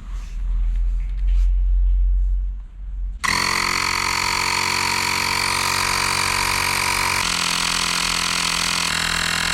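Low rumble and handling noise, then about three seconds in a portable electric tyre inflator starts up, running with a steady buzzing hum. Its tone shifts abruptly twice as it pumps up a motorcycle tyre.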